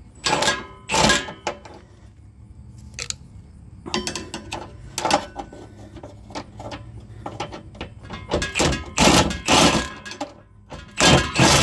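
Red cordless power tool with a socket running in short bursts against a hitch mounting bolt and nut, snugging the receiver hitch to the car's underside, with metal clanks from the socket and bolt. The bursts come singly at first, then three close together near the end.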